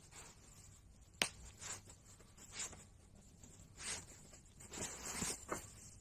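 Faint handling noises: a sharp click a little over a second in, followed by several short rustles.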